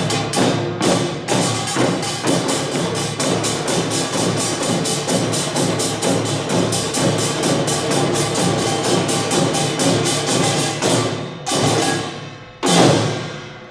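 Korean samul nori percussion ensemble (kkwaenggwari small gong, janggu hourglass drum, buk barrel drum and jing large gong) playing a fast, dense rhythm, then closing with a few separated strokes near the end. The last stroke is the loudest and is left ringing.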